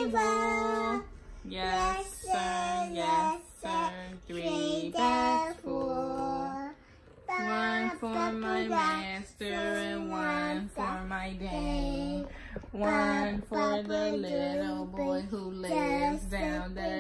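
A voice singing a simple melody with no accompaniment, in short held notes with brief pauses between phrases.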